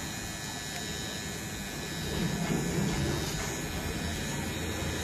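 Cordless T-blade beard trimmer running with a steady electric buzz as its blade is held against forearm hair.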